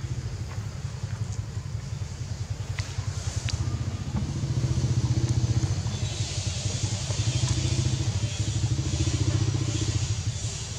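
A small engine running steadily, a low rumble that grows louder about four seconds in, with a high hiss joining about six seconds in.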